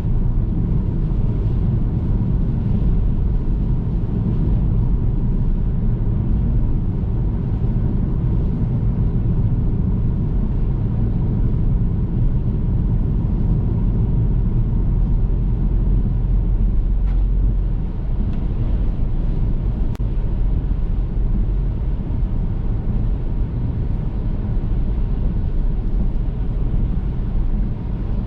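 A car driving on the road: a steady low rumble of engine and tyres.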